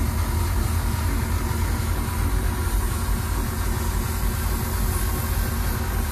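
Airbrush air compressor running steadily with a low rumble, under an even hiss of air.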